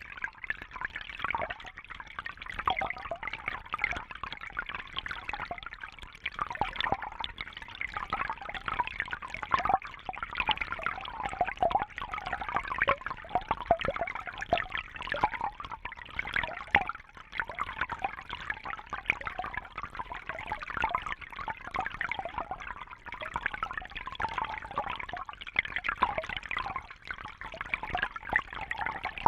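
Small water fountain running, water trickling and splashing steadily.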